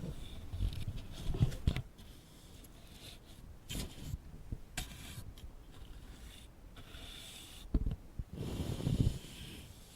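Ear pick scraping and scratching against a microphone in irregular strokes, with low muffled thumps in the first two seconds and again near the end, and a few sharp clicks.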